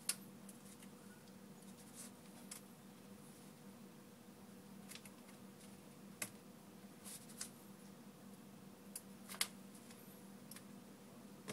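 Faint, scattered small clicks and taps of tweezers and a small screwdriver on the metal frame of an iPhone 4 as tiny screws with metal rings are fitted; the sharpest clicks come just after the start and about nine seconds in. A steady low hum runs underneath.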